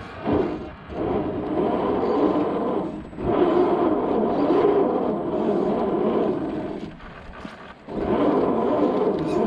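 Axial SCX10 II RC crawler's electric motor and geared drivetrain whining as it is driven in throttle bursts over rough ground, cutting out briefly about three seconds in and for about a second near seven seconds before picking up again.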